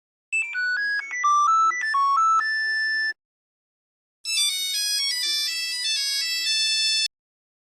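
Two short Nokia mobile phone ringtones played one after the other. First comes a melodic electronic tune of about three seconds. After a second of silence, a brighter, higher and busier version plays for about three seconds and cuts off abruptly.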